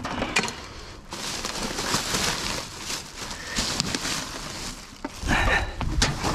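Rummaging through rubbish in a dumpster: rustling with scattered knocks and clinks of items being moved, and a louder clatter about five seconds in.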